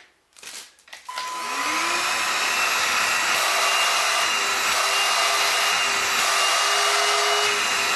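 Raven cordless stick vacuum cleaner switched on about a second in, its motor rising in pitch as it spins up, then running steadily with a constant whine.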